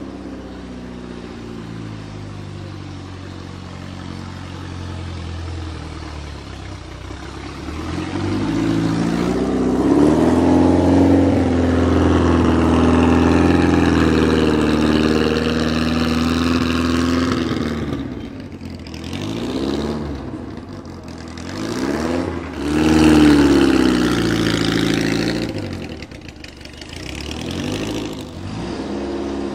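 Lancia Stratos HF Zero's mid-mounted Lancia Fulvia 1.6-litre V4 engine running as the car drives slowly. It rises in pitch about a third of the way in and holds there for several seconds, then drops back and is revved up again in a few shorter rises near the end.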